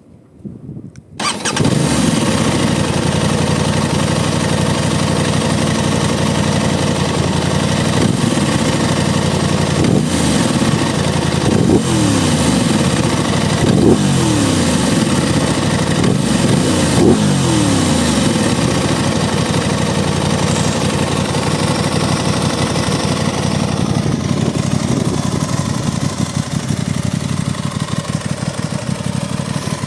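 Aprilia RS660's 659 cc parallel-twin engine starting about a second in and settling to idle, then blipped several times between about 8 and 18 seconds in, each rev falling back to idle, and idling again. Wind noise on the microphone runs underneath.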